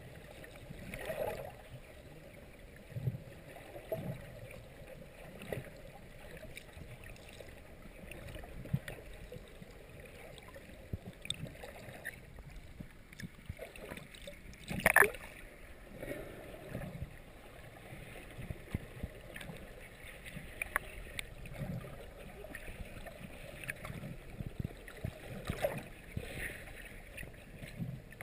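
Muffled water swishing and gurgling heard through a GoPro Hero 2 in its underwater housing, with irregular soft swells and one louder whoosh about halfway through.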